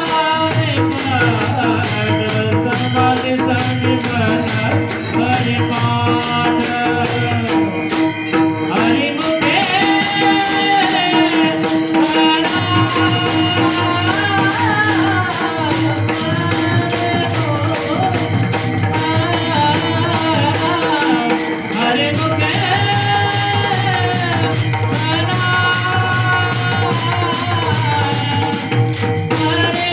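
Marathi devotional song sung in a melodic, gliding voice over pakhawaj drum, metallic jingling percussion keeping time and a steady held drone note.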